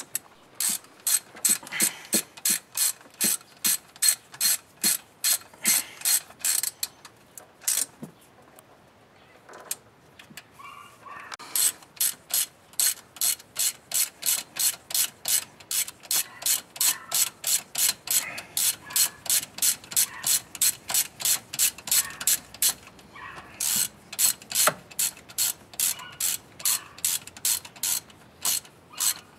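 Hand ratchet wrench clicking steadily as a fastener is turned, about three clicks a second, in long runs with a few short pauses.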